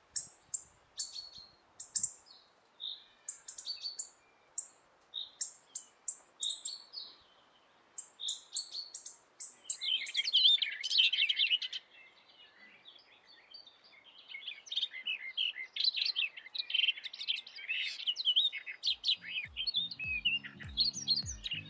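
Small songbirds chirping: short high calls about twice a second, then a louder run of quick warbling twitters from about halfway through. Music with a low, even beat comes in near the end.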